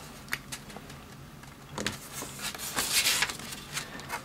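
A sheet of origami paper rustling and crinkling as it is folded and creased by hand, with two longer crinkling strokes about two and three seconds in and a few small ticks between.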